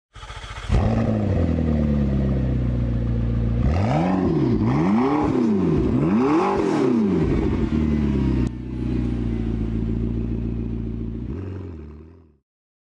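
Car engine cranked and catching within the first second, idling, then revved three times in quick succession around the middle before settling back to idle. It dies away about a second before the end.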